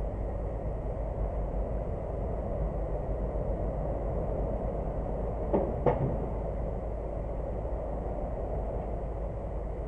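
Steady low background rumble, with two quick knocks close together about halfway through from the hinged flap of a petrol-station rubbish bin being pushed and swinging back.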